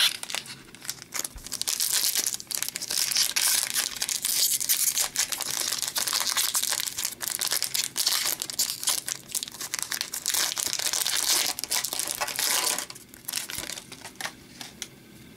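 Foil wrapper of a hockey card pack crinkling and crackling as it is handled and torn open, dense and sharp for about ten seconds. It then drops to a few soft rustles as the cards are slid out.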